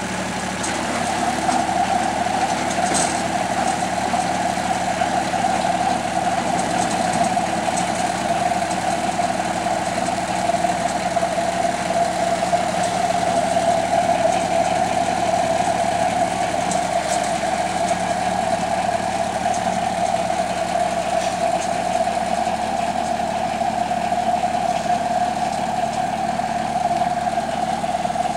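Compact tractor engine running steadily at an even pitch as the tractor moves slowly.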